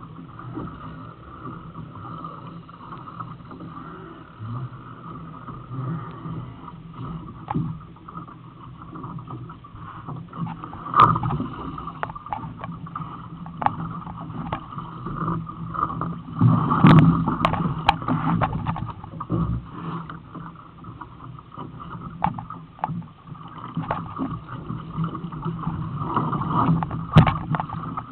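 Water rushing and slapping against the hull of an OK dinghy under sail, a steady wash with scattered sharp knocks and clicks from the boat. The knocks come thickest a little past halfway and again near the end.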